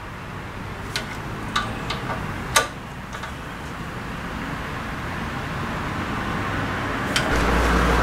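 A few light metallic clicks and one sharper knock about two and a half seconds in, from brake parts being handled at a pickup's rear disc brake, over a steady background hum. Near the end a louder low hum comes in.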